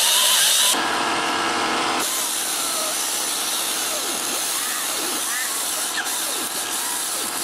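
Small right-angle die grinder with a wire cup brush scrubbing the metal end cover of an old electric motor: a steady, hissy whir that eases a little twice in the first two seconds as the contact changes.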